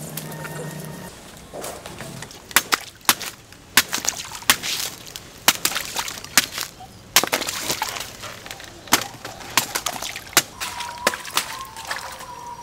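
Irregular sharp clicks and knocks of hard material being handled or chipped, several a second at the busiest, with a faint steady tone near the end.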